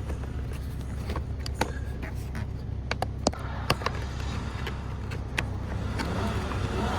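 Scattered sharp clicks and taps of plastic interior trim being handled and fitted back together, over a steady low hum.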